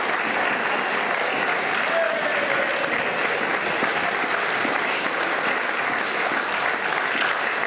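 Steady applause from a hall full of people, many hands clapping.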